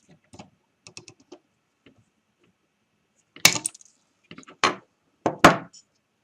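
Side cutters snipping soldered component leads on a circuit board: a few light clicks, then four sharper snaps in the second half.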